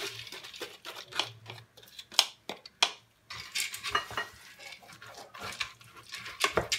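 Wooden spoon scraping lentils out of a plastic sieve into an aluminium pressure cooker and stirring them in the pot, the lentils rattling in. A few sharp knocks of the spoon against the sieve or pot come near the middle.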